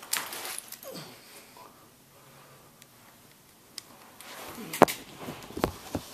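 Rustling handling noise with several sharp clicks; the loudest click comes near the end.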